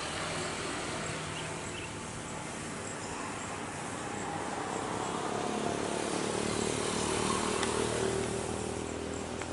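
Batik Air Airbus A320-family jet's engines roaring during its climb-out after take-off, a steady roar that swells louder about six seconds in.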